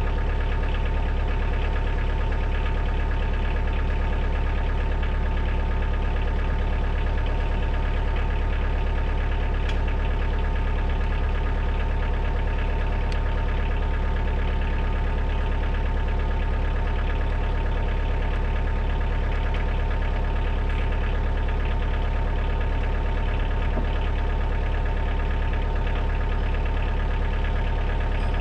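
Kioti DK40 diesel tractor engine running steadily at a constant speed, with no change in pitch or level.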